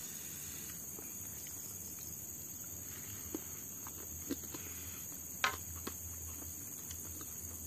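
Steady high-pitched chorus of insects chirring in the background, with a few soft clicks and taps from people eating, the sharpest about five and a half seconds in.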